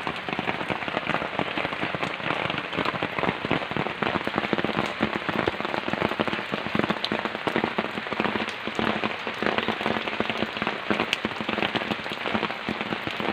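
Heavy rain falling steadily, a dense patter of countless drops.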